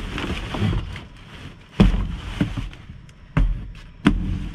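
Rummaging through a dumpster: rustling trash and boxes with four sharp knocks and thuds as items are pulled and dropped.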